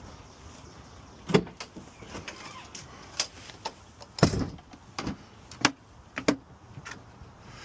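A series of irregular sharp knocks and clunks, about eight of them with the loudest near the middle, over a low steady background.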